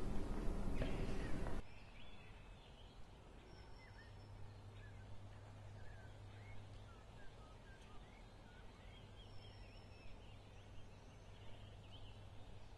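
A loud, noisy sound that cuts off abruptly about a second and a half in, followed by faint, scattered chirps of small birds over a low steady hum.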